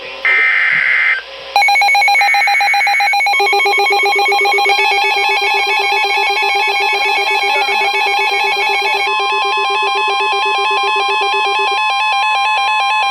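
NOAA Weather Radio alert sequence: two harsh, buzzy SAME digital header bursts about a second each near the start, then the steady warning alarm tone near 1 kHz under the weather radio receiver's own rapid pulsing alert beeps. It signals an incoming severe thunderstorm warning.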